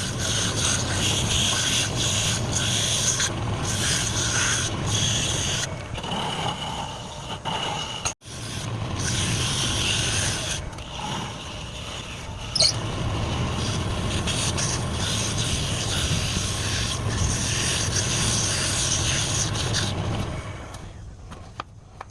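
Wood lathe running while a hand-held turning tool scrapes against the spinning workpiece: a steady motor hum under a high scraping squeal. There is a brief break about eight seconds in, and a sharp click a few seconds later.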